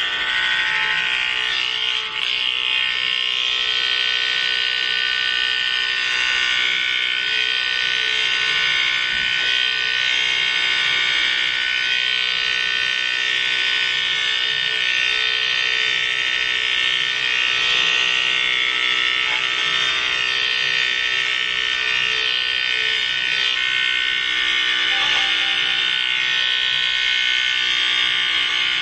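Electric hair clippers running with a steady high buzz, cutting the bulk off a head of grown-out hair.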